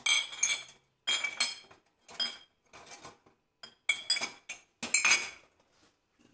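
Ceramic mugs and dishes being set into a chrome wire dish rack, clinking against the metal wire and each other in about six short clattering bursts with a bright ring. A short dull knock at the very end.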